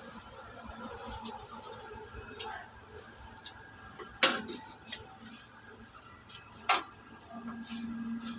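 Two loud sharp clicks or knocks about two and a half seconds apart, with smaller ticks between them, over a faint high whine that fades out in the first few seconds; a low hum comes in near the end.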